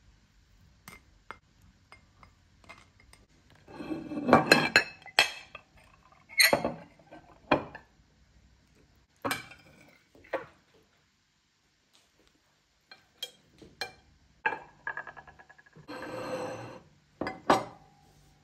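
Ceramic bowls, plates and utensils clinking and knocking together in a string of separate clatters, the loudest about four to five seconds in, some leaving a brief porcelain ring.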